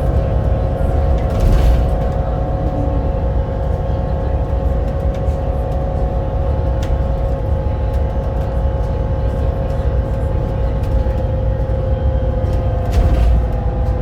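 Volvo B7RLE bus with a six-cylinder diesel and ZF Ecolife automatic gearbox running at steady speed: a low rumble under a steady drivetrain whine that holds one pitch, with light rattles and two louder bumps, one about a second and a half in and one near the end.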